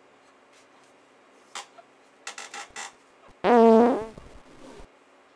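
A fart sound: one short, loud, buzzy blast with a wavering pitch, about half a second long, starting a little past the middle, after a few faint clicks.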